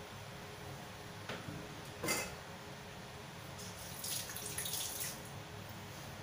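Sauce poured from a bottle into a wok of dark liquid: a light splashing trickle, with a brief clink about two seconds in.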